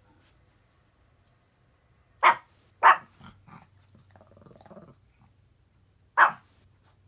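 Small Chihuahua giving alarm barks at unfamiliar road-work noise: two sharp barks about two seconds in, half a second apart, then a few softer woofs and a low grumbling growl, and one more sharp bark near the end.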